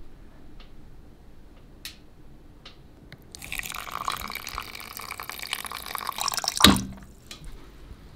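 Water running from a water jug's spigot into an aluminium hangō mess tin holding rice, filling for about three seconds. It ends with a sharp knock, and there are a few light clicks before the pour.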